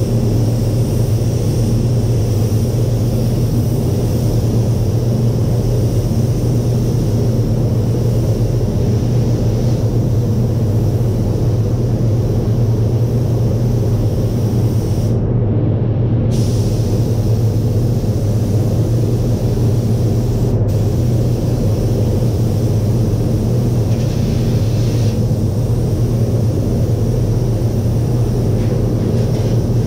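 Paint spray booth's ventilation fans running: a steady low hum with a rushing of air.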